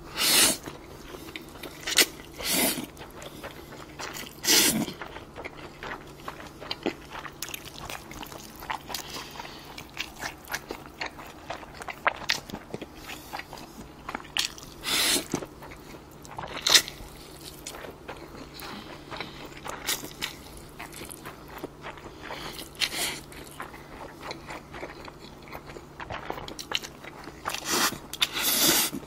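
A person eating cold spicy bibim noodles with beef brisket: short loud slurps of noodles every few seconds, with quieter chewing between.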